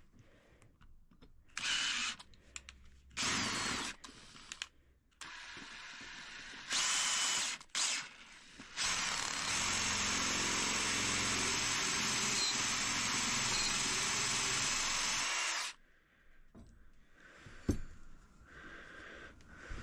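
An electric drill run in a few short bursts and then held for a long steady run of about seven seconds, drilling out a rivet.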